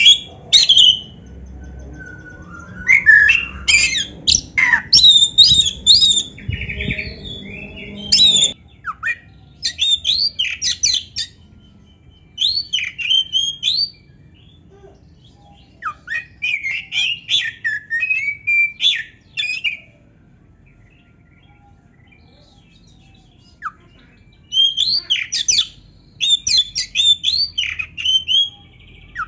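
Oriental magpie-robin of the black-bellied form (kacer dada hitam) singing loud runs of varied, fast whistled and harsh notes, broken by pauses of a few seconds, the longest about four seconds just past the middle. A low background rumble stops abruptly about eight seconds in.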